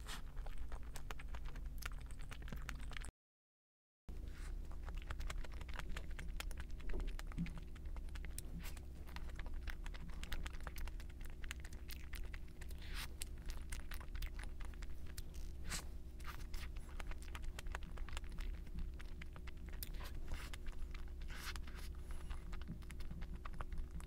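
Many small clicks and scratches of food packaging and utensils being handled, over a steady low hum. The sound cuts out completely for about a second about three seconds in, then resumes.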